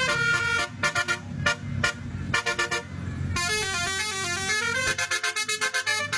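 Basuri telolet musical horn on a bus playing a tune. Short toots in the first three seconds give way to a longer run of notes stepping up and down, then end in quick repeated toots, with the bus engine's low rumble underneath.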